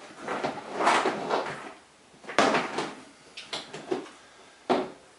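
Rifle magazines being handled and set down on a hard surface: a few clusters of clatter and several sharp knocks, the clearest about two and a half seconds in and near the end.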